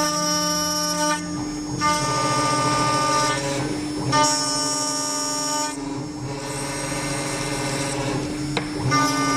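CNC router's 5.5 kW water-cooled spindle running with a steady whine while the end mill cuts 6061 aluminum. The cutter gives five high-pitched ringing squeals, each about a second and a half long and roughly every two seconds, as the tool engages the metal on each pass.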